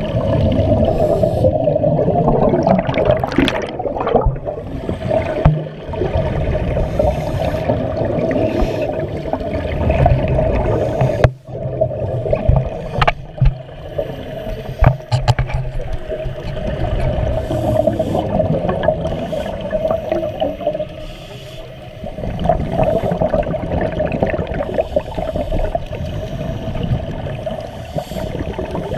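Underwater sound heard through a GoPro housing: the low, surging rumble of a scuba diver's exhaled regulator bubbles, over a steady hum, with a few short clicks.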